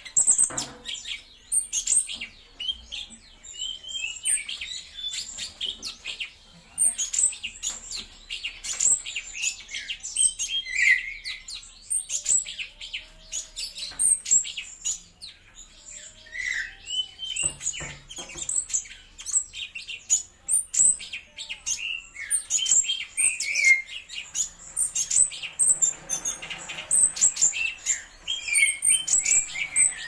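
Caged cucak cungkok leafbird singing a fast, varied song of chirps, trills and sharp high notes, almost without a break.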